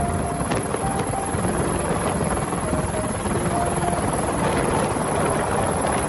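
Military police rescue helicopter's rotor and engine running steadily, heard from aboard as it hovers with a stretcher hanging on its hoist cable.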